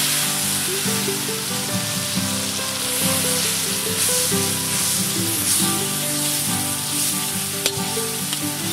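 Sautéed masala paste frying in hot cooking oil, a steady loud sizzle.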